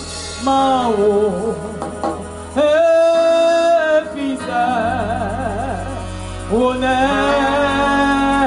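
Church choir singing a slow worship song, with long held notes that waver with vibrato, over a steady low sustained accompaniment.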